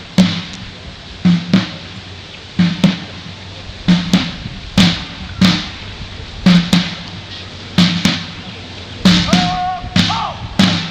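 Military side drum beating a slow marching cadence: two quick strikes roughly every 1.3 seconds, each with a short ring, with a few single strikes in between.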